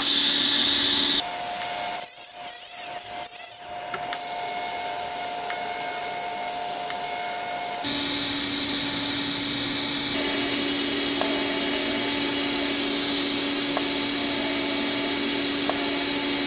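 TIG welding arc on a cracked steel exhaust flange: a steady buzzing hiss over a constant hum. The sound changes abruptly about a second in, again around four seconds and near eight seconds, then holds steady.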